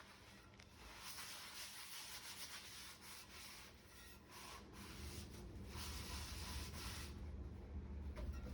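SOS steel-wool soap pad scrubbing a cast iron Dutch oven in repeated strokes to strip off old seasoning. The scrubbing stops about seven seconds in, while a low hum builds over the last few seconds.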